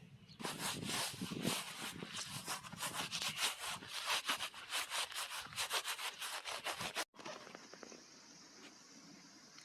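Rapid, rhythmic rasping or scraping strokes, several a second, that stop abruptly about seven seconds in, leaving a fainter steady hiss.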